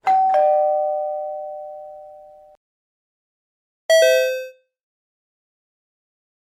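Two-note 'pin-pon' doorbell chime: a higher note, then a lower one, ringing out for about two and a half seconds. About four seconds in, a shorter, lower-pitched pin-pon is cut off after about half a second.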